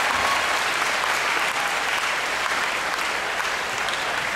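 Audience applauding steadily, with many hands clapping at once.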